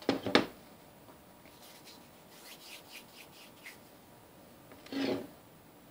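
A glass jar set down on a table with a couple of sharp knocks, then faint rubbing and light ticks of fingers working small balls of soft modelling clay. A short breathy burst comes about five seconds in.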